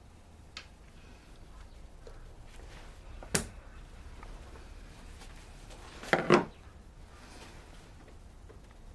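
Plastic parts being handled and snapped into place: one sharp click about three seconds in, then a short rattle of clicks and knocks about six seconds in.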